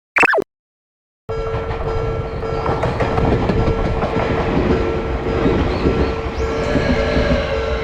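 A brief cartoon sound effect falling in pitch, then after about a second of silence a train's running noise cuts in abruptly: a steady rumble with a constant hum.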